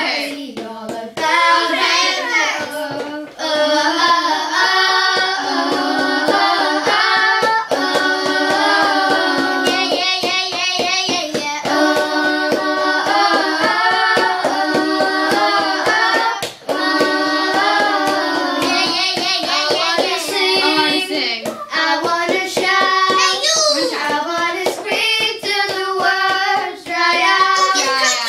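Young girls singing a song together, with hand taps keeping a beat under the singing.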